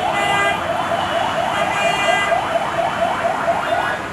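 A vehicle siren in a fast yelp: a rising sweep repeated about four times a second, stopping just before the end, over steady road traffic noise.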